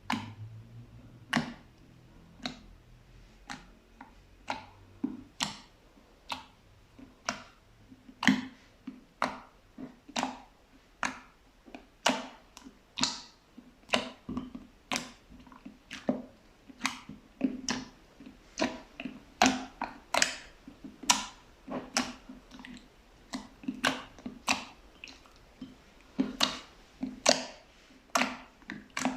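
Fluffy slime pressed and squeezed by hand, giving a steady run of sharp wet pops and crackles, roughly one or two a second.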